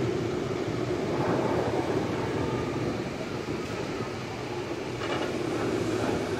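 Steel roller coaster train running along its track, a steady rumble that swells slightly near the end as the train comes down the drop.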